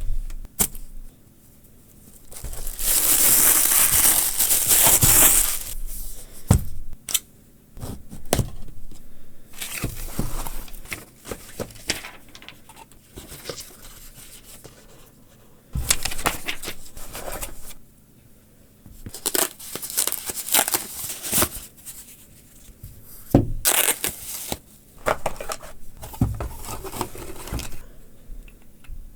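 Product packaging being opened by hand: a long tearing sound a few seconds in, then bursts of rustling and crinkling with sharp clicks as the box and wrapping are handled.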